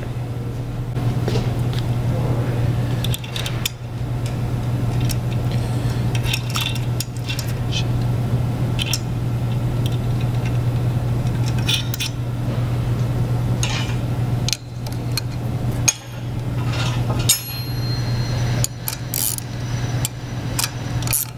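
Short metallic clinks and taps of steel pump parts and bolts being handled and fitted by hand, over a steady low hum.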